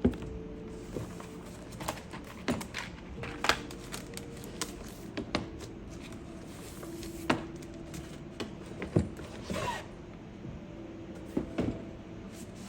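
Scattered sharp clicks and knocks of small hard items being handled and set down on a desk, with a short rustle about nine and a half seconds in and faint steady tones underneath.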